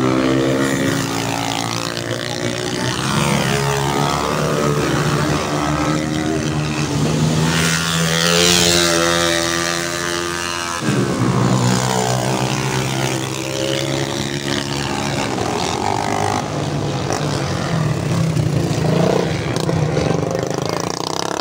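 Motocross dirt bike engines revving hard, the pitch rising and falling as the riders work the throttle through the gears. The engine sound changes abruptly about eleven seconds in, and another bike's engine carries on.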